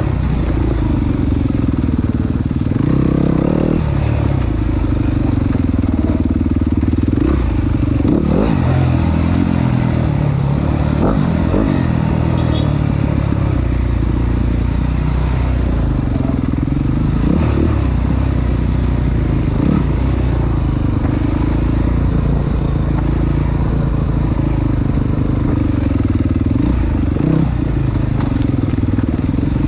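Enduro dirt bike's engine being ridden on a rough trail, its revs rising and falling as the throttle is worked, with occasional knocks.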